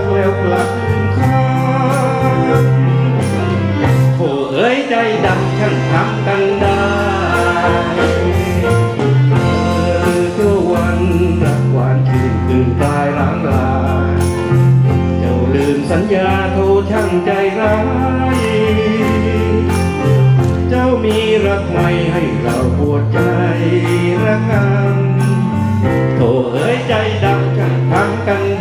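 A man singing a Thai song into a microphone, backed by a band with a steady bass line.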